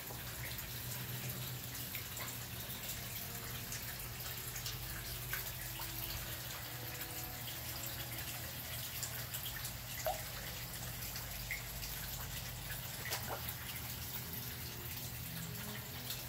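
Koi pond water dripping and trickling over a steady hiss, with a few sharper drops, the clearest about ten seconds in and again near thirteen seconds.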